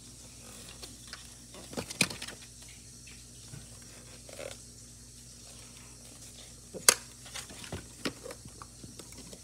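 Scattered light clicks and knocks of a die-cast model car and its plastic display base being handled and turned, with a sharp click about seven seconds in, over a faint steady low hum.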